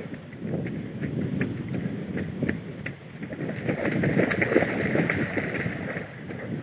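A trail runner's footsteps on a muddy forest track, a quick regular stride of about two to three steps a second with the body-worn camera jostling. About four seconds in the steps turn louder and wetter as the runner crosses a waterlogged stretch of the path.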